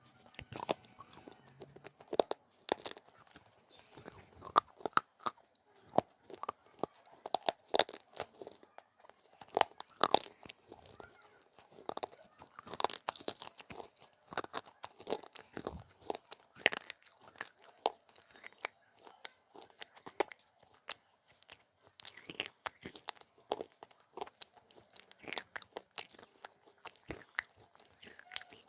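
Close-up biting and chewing of brittle baked clay pieces: sharp, crisp crunches come irregularly, several a second, between quieter chewing.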